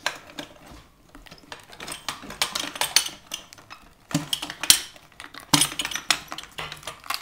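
Irregular light clicks, taps and clatter of hard plastic and metal parts being handled at a dental vacuum-forming machine, around a freshly formed tray. A few sharper knocks come in the second half.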